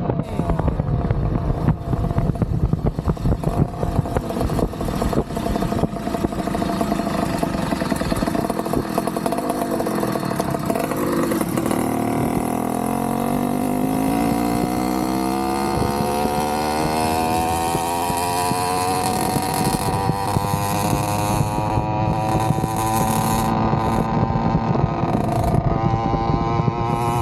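Small two-stroke motorized bicycle engine (Avenger 85 kit engine with a Nibbi PE19 carburetor and a Gomax expansion-chamber exhaust) running under way. Its pitch drops about eleven seconds in, then rises steadily for several seconds as the bike accelerates and holds high near the end.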